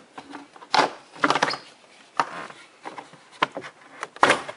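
Rubber door weather stripping being pulled off the door-frame edge beside a pickup's A-pillar, in about five short pulls, the loudest near the end.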